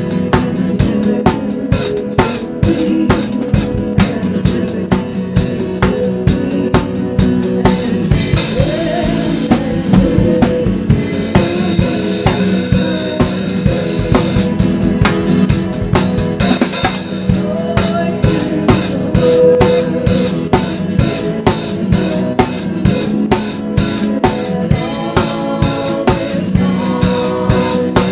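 Worship band music with a drum kit keeping a steady beat on snare and bass drum under sustained instrument chords. Cymbals wash in for a few seconds in the middle.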